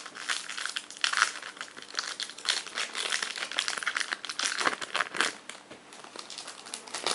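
Foil Pokémon Black & White booster pack being torn open and handled, its wrapper crinkling irregularly throughout.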